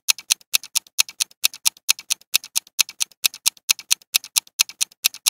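Ticking clock countdown-timer sound effect: steady clicks, about four a second, alternating louder and softer like a tick-tock.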